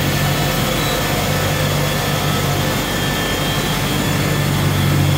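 Automatic glass edging machine running: its row of grinding-wheel motors hums steadily, under an even hiss.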